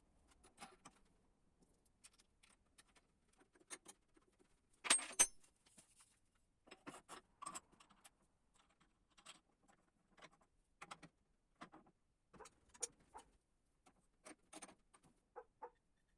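Metal parts and tools being handled: irregular light clicks and metallic clinks, the loudest a short clatter about five seconds in.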